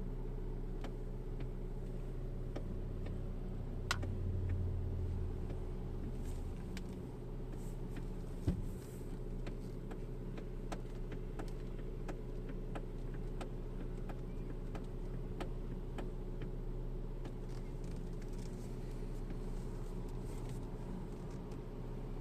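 Kia Ceed JD steering clicking and knocking as the wheel is turned, with light clicks every second or so and two louder knocks about four and eight and a half seconds in, over the steady hum of the running engine. The owner says the knock comes when turning from right to left, whatever the wheel's position.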